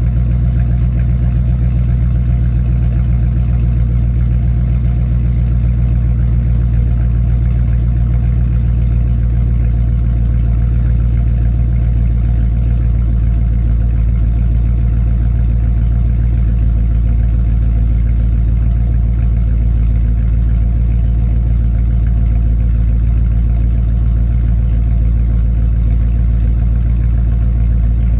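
Jeep Grand Cherokee SRT8's 6.1-litre Hemi V8 idling steadily through stock manifolds and dual resonated 2.5-inch aftermarket exhaust pipes, heard at the tailpipes. The exhaust note is deep and even, and the engine is still warming up after a cold start at freezing.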